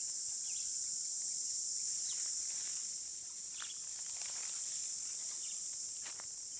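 Steady high-pitched insect drone, a chorus of cicadas or crickets, with a few faint short crackles scattered through it.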